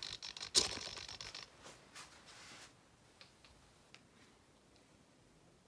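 Handling noise from a phone being moved by hand: rustling with a sharp click about half a second in. After about a second and a half it fades to near silence, with a few faint ticks.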